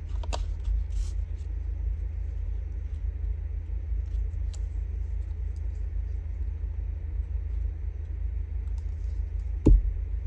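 A steady low background rumble, with faint clicks of paper strips being handled and glued, and one sharp thump on the tabletop near the end.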